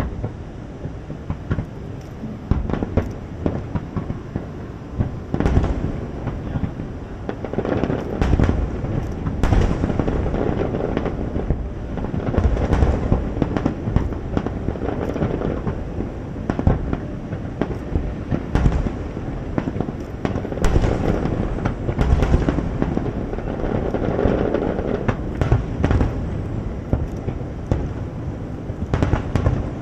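Aerial fireworks display: a dense, continuous barrage of overlapping booms with many sharp bangs.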